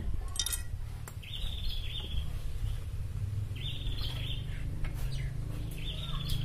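A songbird repeating the same short, high trilled phrase about every two seconds, three times, over a steady low hum, with a few sharp clicks.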